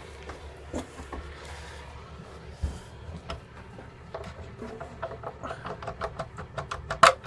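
Footsteps and knocks on the boat, about two or three a second, building up over the second half with a loud knock near the end, over the faint low hum of a MAN six-cylinder diesel idling just after a cold start, so quiet that it can hardly be heard.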